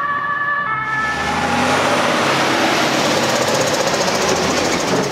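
German two-tone emergency siren sounding briefly at the start, then cut off as a large truck passes close by on a brick-paved lane, its engine and tyre noise making a loud, even rumble for the rest of the time.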